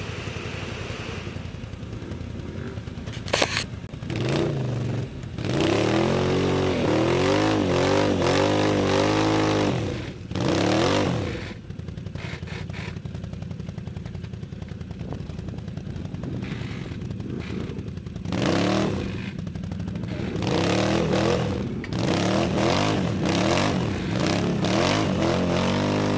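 ATV engine idling and being revved again and again in bursts lasting a few seconds each, the longest about four seconds, as a quad stuck deep in a mud bog is throttled to work it free.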